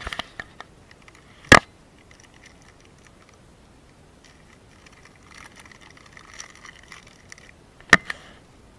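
Plastic snack wrapper crinkling as it is handled, for a few seconds from about halfway through. Sharp knocks sound over it: a few at the start, the loudest about a second and a half in, and two close together near the end.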